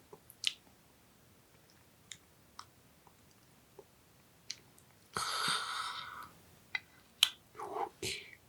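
Scattered light clicks and taps of tableware, with a rustling noise about a second long about five seconds in.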